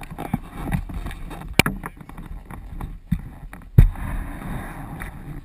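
Handling noise from a helmet-mounted GoPro as the motocross helmet is held and carried: irregular rubbing and rumbling with scattered sharp knocks, the loudest nearly four seconds in.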